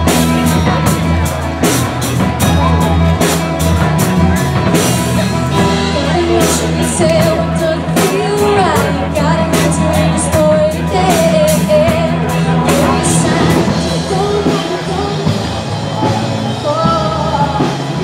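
Music: a song with a drum kit and a singing voice. Dense drumming opens it, and the sung melody comes in about six seconds in.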